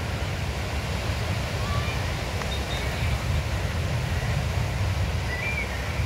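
Wind rumbling on the microphone over the steady wash of sea waves breaking on the beach.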